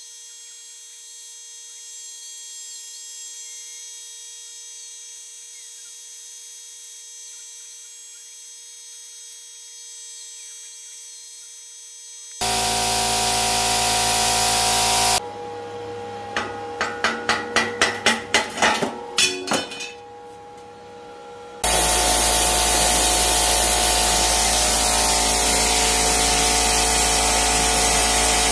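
A steady electrical hum, then a little under halfway through the loud hiss of a plasma cutter's air and arc starts suddenly. It gives way to a string of about a dozen sharp crackles that come quicker and louder, and then the steady loud hiss comes back.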